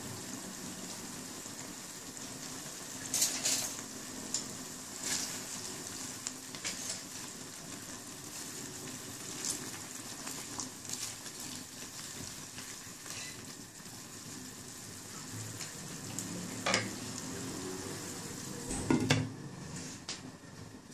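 Water spinach being stirred in a steel pot of hot water with a wooden utensil, over a steady hiss, with scattered knocks and scrapes against the pot. Just before the end a glass lid is set on the pot with a clatter, the loudest sound.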